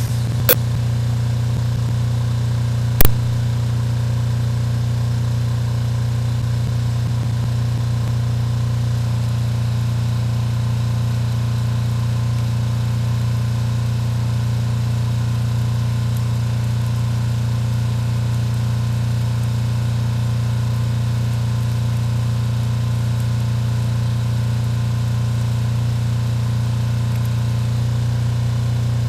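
An engine idling steadily, a low even hum, with two sharp knocks: a light one about half a second in and a louder one about three seconds in.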